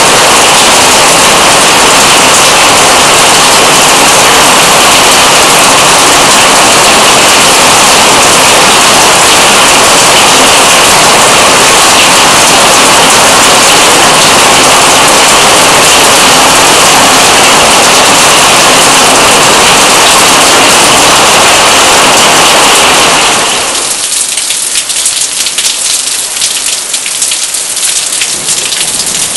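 Heavy thunderstorm downpour: a loud, steady rush of rain. About 23 seconds in it changes to a lighter spatter of separate drops hitting hard surfaces.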